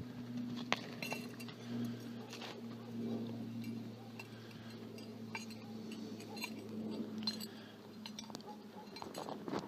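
A Scottish Highland cow grazing in icy, crusted snow: scattered small crunches and clinks as it digs through the snow and tears up grass, over a steady low hum.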